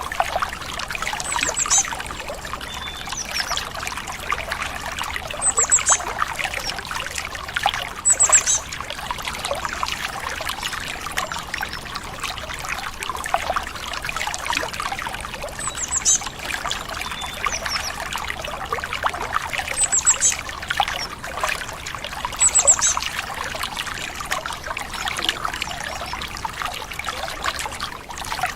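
Stream water trickling steadily, with a bird's short, high chirps coming every few seconds.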